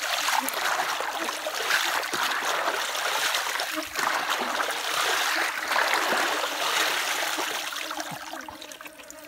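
Muddy water sloshing and pouring back out through the holes of a plastic basket as it is scooped through a shallow, muddy rice-field pool, with splashing from wading feet. The watery noise is steady and thins out near the end.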